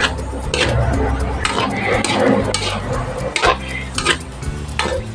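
A metal cooking utensil scraping and knocking against a wok as yardlong beans are stir-fried, with a stroke every half second to second.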